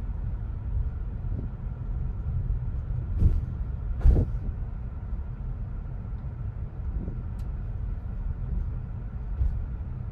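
Tesla Model Y driving, with a steady low rumble of road and tyre noise. Two thumps come a little under a second apart, about three and four seconds in.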